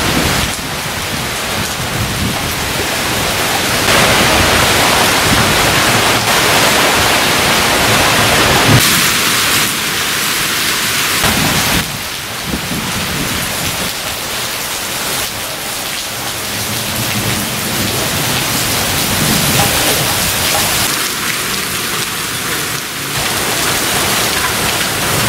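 Heavy rain in a thunderstorm with strong wind: a dense, steady hiss of rain that swells and eases, with a sharp crack about nine seconds in.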